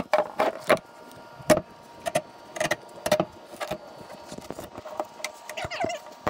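Hand scraper scraping old glue along a boat deck seam and knocking against a metal hatch frame being pried up and lifted: an irregular string of sharp knocks, clacks and scrapes, the loudest about one and a half seconds in.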